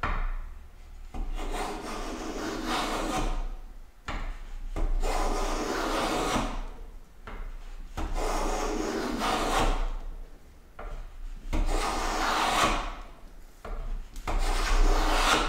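A metal bench plane, its sole waxed with paraffin, cutting shavings from a board in a run of about six long push strokes. Each stroke is a rasping slice of a second or two, coming about every three seconds with short pauses between them.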